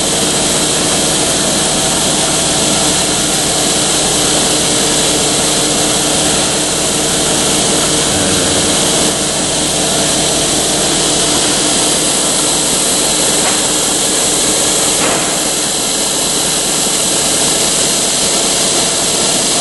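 Milking machine's vacuum pump running: a steady mechanical drone with several held tones under a constant hiss.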